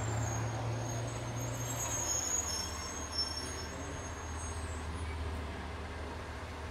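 A steady low mechanical hum, with a faint high whine over the first few seconds and a single small click about three seconds in.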